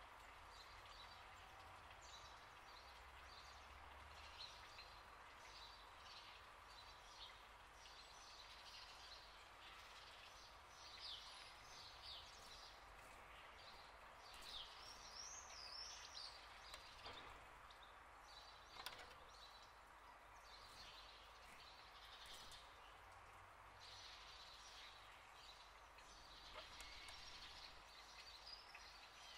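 Faint outdoor ambience: scattered bird chirps and trills over a low steady background hiss.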